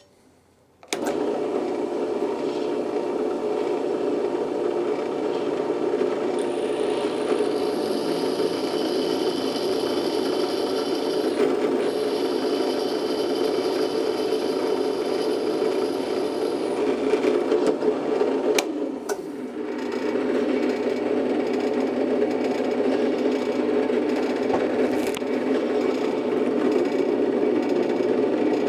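Bench drill press starts about a second in and runs steadily while a No. 34 drill bit bores small holes in a 3/16 in mild steel plate. A high whine joins in from about six to seventeen seconds in, and the sound briefly drops near nineteen seconds before running on.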